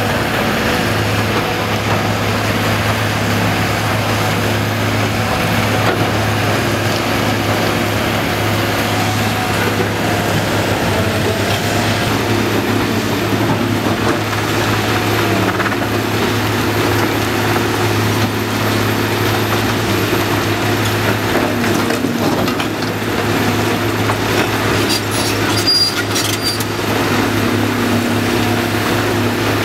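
Cat 345BL excavator's diesel engine running steadily under load, with a wavering hydraulic whine as the boom and bucket move. A few sharp clatters of debris come near the end.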